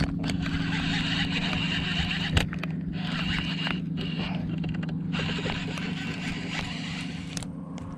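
Baitcasting reel being cranked to retrieve line: a whirring of the reel's gears in stretches of a second or two, with a sharp knock about two seconds in, over a steady low hum.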